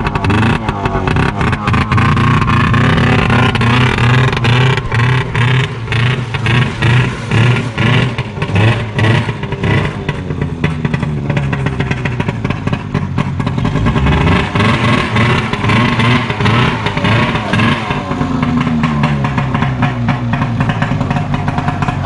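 Loud 1996 Arctic Cat Jag 440 snowmobile engine, a two-stroke twin, running straight piped with its exhaust silencer box removed. The engine note rises and falls repeatedly as the throttle is worked and the sled is ridden.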